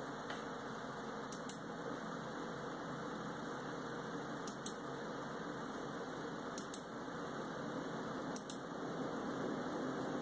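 Computer mouse clicking four times in quick pairs, each a press and release, roughly two seconds apart, as menu items are selected in a DVD player program. A steady hiss of noise, like a computer fan, runs underneath.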